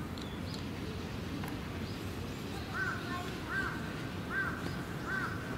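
A bird calling four times, evenly spaced a little under a second apart, starting about halfway through, each call rising and falling in pitch.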